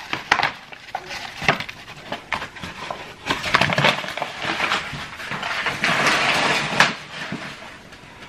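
Paper flour bag rustling and crinkling as flour is scooped and scraped out with a measuring cup, mixed with light clicks and knocks of kitchen utensils.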